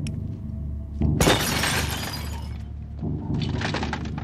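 A car window's glass shatters in a sudden loud crash about a second in. Scattered crackling of breaking glass follows near the end, over a low film score.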